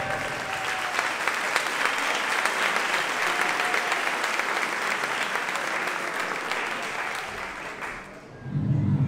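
Audience applause, a dense steady clapping that fades out about eight seconds in, after which bass-heavy music starts up.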